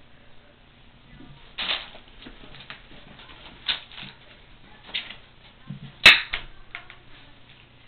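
Kittens at play with a wand toy: scattered rustles, taps and sharp clicks, the loudest a sharp crack about six seconds in.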